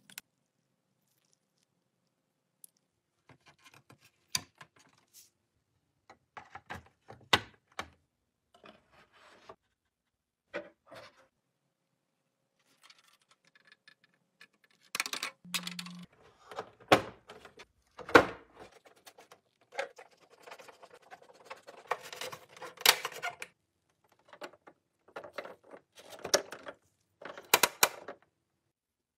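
Close-up handling of small hard plastic toy parts: scattered clicks, taps and light scraping as decals are pressed on with a craft blade and pieces are fitted into place, with stretches of silence between. The clicks come thicker and louder in the second half.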